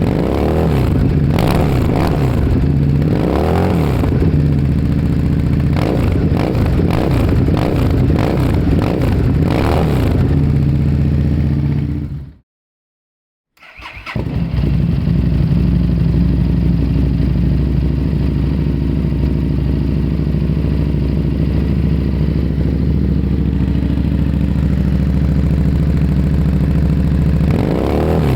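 Harley-Davidson Street Rod's V-twin engine through its exhaust, revved in repeated throttle blips that rise and fall every second or two. About twelve seconds in the sound fades out for about a second, then fades back in to the engine idling steadily, with revving again near the end.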